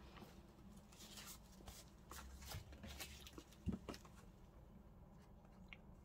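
Faint handling of paper: light rustles and small clicks, with a soft thump a little past halfway.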